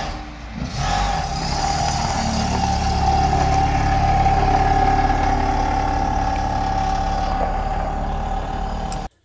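Rotary-engined car running steadily and driving off, a loud even engine note that cuts off abruptly near the end.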